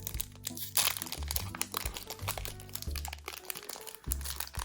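Crinkling and crackling of a Pokémon TCG booster pack's foil wrapper being handled and torn open, over steady background music.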